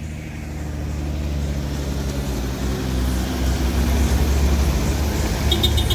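Heavy motor vehicle engine running with a low rumble that grows steadily louder, as of a large vehicle drawing near.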